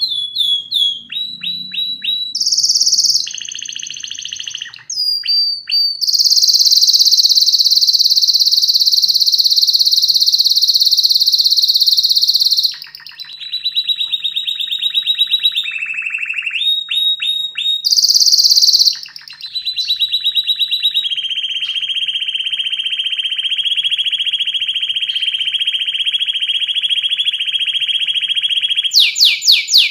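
Domestic canary singing a continuous song made of fast trills and runs of rapidly repeated notes. It includes long high rolls of several seconds each, one lasting about eight seconds near the end.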